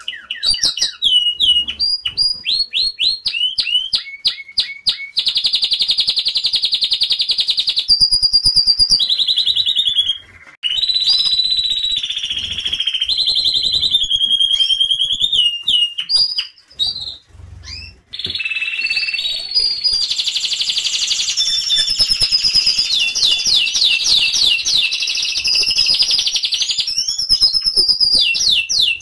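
Domestic canary singing a long song of fast repeated-note trills and rolls, some slow and chopped, others a rapid buzzing roll, with brief pauses around a third of the way in and again a little past halfway.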